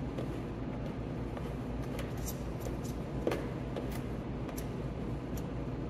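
Fingers pressing and working epoxy putty onto a vinyl window frame, giving light taps, clicks and short scrapes, the sharpest click about three seconds in, over a steady low background rumble.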